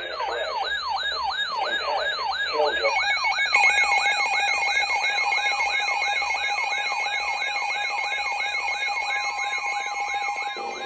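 Electronic emergency alert tone: a rapid falling yelp repeating about three times a second, joined about three seconds in by a steady electronic tone.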